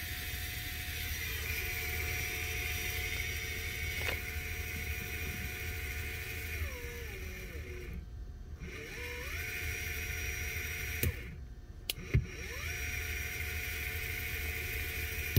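A 42 mm BLDC gearmotor with a bevel-gear reducer running with a steady electric whine. About seven seconds in, its pitch falls as the speed is turned down nearly to a stop, then rises again as it speeds back up. Around eleven seconds two switch clicks stop and restart it, and the whine climbs back to speed.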